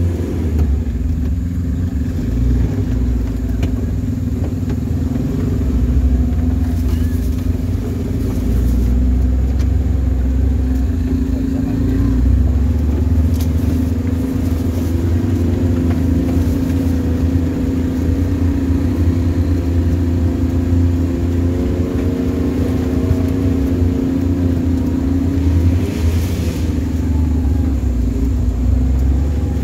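Off-road 4x4's engine running steadily in low gear on a rough dirt track, a continuous low drone that rises a little in pitch about two-thirds of the way through.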